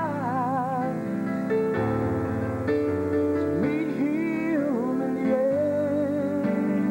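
A man singing a southern gospel song with piano accompaniment. He opens on a held note with vibrato, slides through a run in the middle, and settles on another wavering note near the end.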